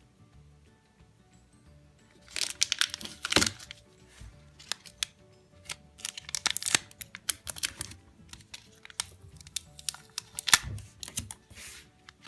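Plastic packaging crinkling and small plastic toy parts clicking as they are handled, in irregular runs of sharp clicks and crackles from about two seconds in, over quiet background music.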